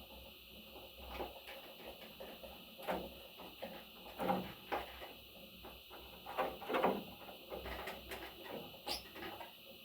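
A budgie or small parrot scratching, clicking and knocking about in its cage, in irregular short bursts, with a brief rising chirp near the end. A steady high whine runs behind it.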